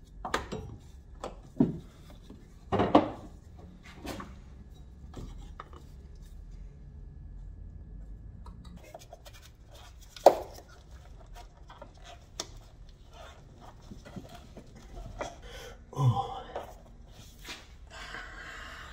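Irregular knocks, clicks and rattles of hand work on a car's wiring: the engine wiring loom being worked loose and pulled out, with a few sharper thuds, the loudest about ten seconds in.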